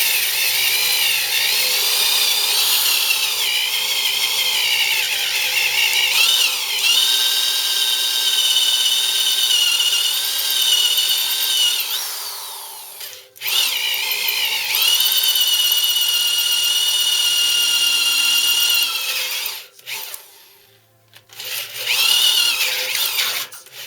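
Slow-speed 1/2-inch drill driving a 1 7/8-inch bimetal hole saw dry into a cast-iron mill base, the cutter grinding with a high, wavering screech. It stops briefly about 13 seconds in, and again for a couple of seconds around 20 seconds, before starting up again.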